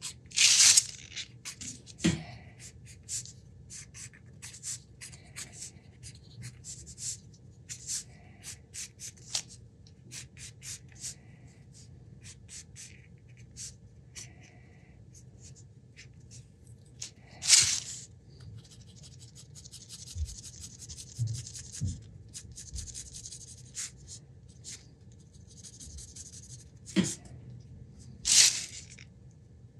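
Hands working with small objects: a run of light clicks and ticks, several louder sharp knocks, and two stretches of soft scratching about two thirds of the way through.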